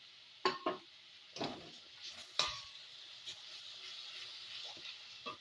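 Raw mango paste sizzling in a kadai of hot oil with spluttered mustard seeds, a steady hiss, while a spatula stirs it and knocks against the pan about six times.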